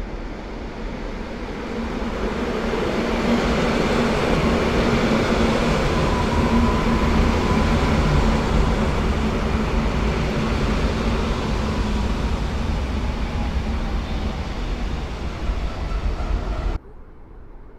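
Koleje Mazowieckie EN57-type electric multiple unit pulling into the platform and running past close by: a steady rumble of wheels on rail that grows louder over the first few seconds, with a faint steady whine in the middle. The sound cuts off sharply about a second before the end.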